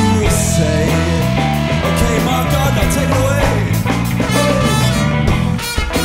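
Live blues-rock band playing: electric guitar, electric bass and drums, with a trumpet joining in.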